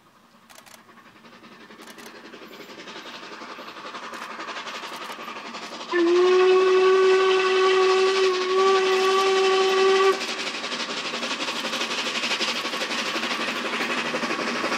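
Class 498.1 'Albatros' steam locomotive approaching with its train. Its running noise grows steadily louder throughout. About six seconds in it sounds its steam whistle: one steady, chord-like blast of about four seconds that starts with a slight upward slide and is the loudest sound here.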